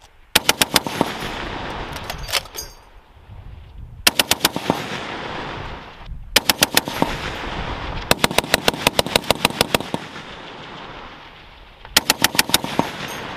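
M2 .50 caliber heavy machine gun on a tripod firing short bursts of about four to six rounds at roughly eight shots a second, with one longer burst in the middle. Each burst is followed by a rolling echo.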